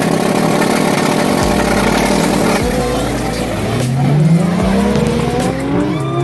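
Audi S3 with an ABF 16-valve engine held at high revs on launch control beside a second car at the drag start line. About two and a half seconds in, both cars launch and their engines climb in pitch, drop at a gear change and climb again as they pull away.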